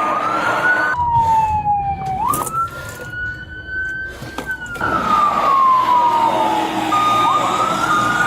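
Police siren wailing, its pitch sliding slowly down and back up in long sweeps, with a brief sharp jump in pitch a little over two seconds in. A low vehicle rumble runs underneath.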